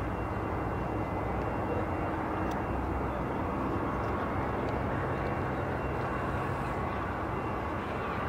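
Airliner engines running, a steady rumble with faint high whining tones over it.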